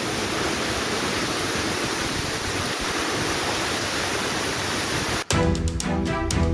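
Steady, dense hiss of heavy rain for about five seconds, cut off suddenly by background music with sustained chords and a steady beat.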